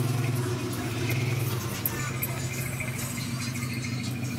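A vehicle engine running steadily at idle, a low even hum, with faint voices around it.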